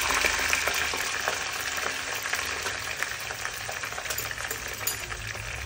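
Raw potato fries sizzling and crackling in hot oil in a saucepan, freshly added; the sizzle slowly dies down.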